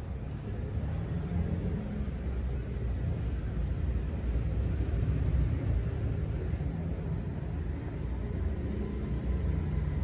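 Steady low rumble of background noise with no distinct events, swelling slightly around the middle.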